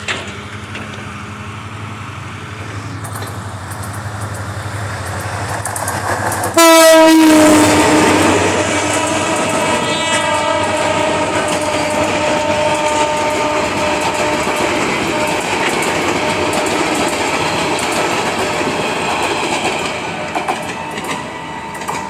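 Passenger train passing close by. A low rumble builds as it approaches, then about six seconds in the locomotive's horn blasts suddenly and loudly, dipping slightly in pitch and then holding as one long note. Under the horn the coaches' wheels rattle and clatter over the rail joints, fading near the end as the last coach goes by.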